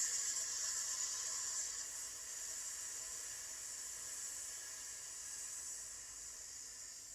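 A woman's long, hissing "sssss" exhale, the qigong healing sound for the lungs, held steadily and growing gradually softer until it dies away at the end.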